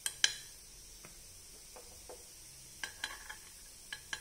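Steel spoon clinking and scraping against the metal cups of a paniyaram pan as cooked pakodas are lifted out: two sharp clinks at the start, one about a second in, and a quick run of clinks in the last second and a half, over a faint sizzle of oil.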